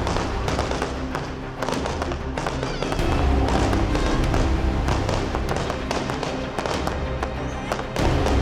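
Firework cake batteries (Keller Full Power) firing a rapid run of shots and bangs, over a music track with a steady bass.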